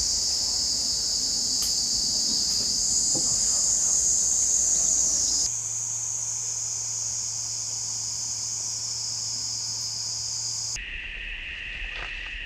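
Steady, high-pitched chorus of jungle insects, with a few faint knocks in the first seconds. About two seconds before the end the chorus changes to a lower-pitched drone.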